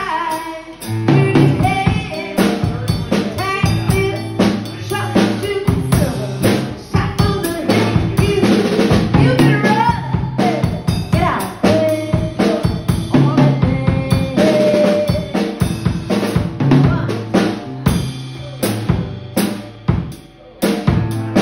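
Live band instrumental break: a drum kit plays a beat with snare and bass drum, under strummed and picked acoustic-electric guitar.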